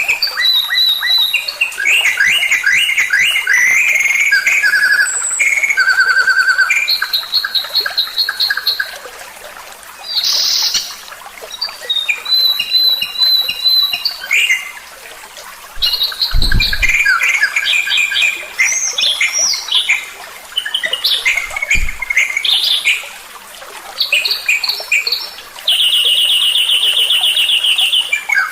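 Songbird song for training pet birds: a fast, varied string of chirps, whistles and rapid trills with short pauses, ending in a long, fast, even trill. Two brief low thumps sound in the middle.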